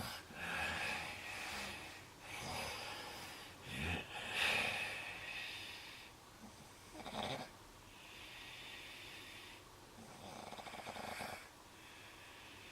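A sleeper snoring in uneven, noisy breaths, about six in all. There is a short, sharp snort about seven seconds in and a fluttering, rattling breath a few seconds later.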